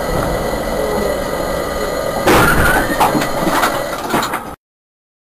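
Steady road rumble of a moving vehicle; a little over two seconds in, a sudden loud burst of noise with a short screech and a few sharp knocks, as a car cuts across in front. It lasts about two seconds, then the sound cuts off abruptly.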